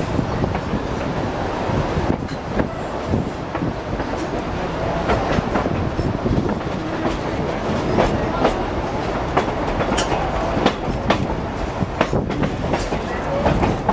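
Narrow-gauge passenger car of the Durango and Silverton train rolling along the track, heard from an open car. There is a steady rumble of wheels on rail, with irregular clicks and knocks from the rail joints.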